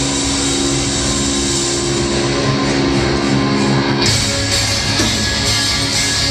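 Live rock band heard from the crowd: held, ringing notes for about four seconds, then drums with cymbals and electric guitars crash in together and the full band plays loudly.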